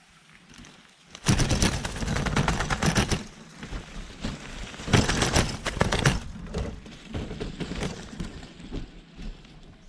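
A caught wild dove flapping its wings hard in two bursts, a second or two long each, beating against the trap cage. Weaker scattered fluttering follows.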